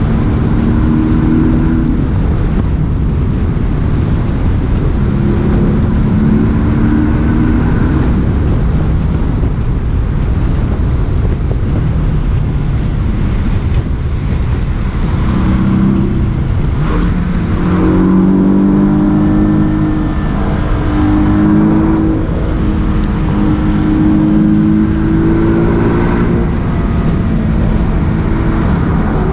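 Porsche 718 S's turbocharged 2.5-litre flat-four engine driving, its note rising and falling as it revs over a heavy, steady low rumble. The engine is most prominent and climbs in pitch several times in the second half.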